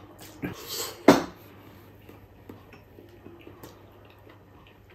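A slurp of hot bulalo broth from a glass bowl, then a sharp knock about a second in as the glass bowl is set down on the wooden table. After that only faint small ticks of eating.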